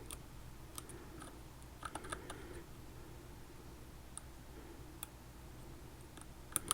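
Faint, scattered metal clicks of a lock pick working the pins of a Mul-T-Lock Jr lock held under heavy tension, with a sharper pair of clicks near the end.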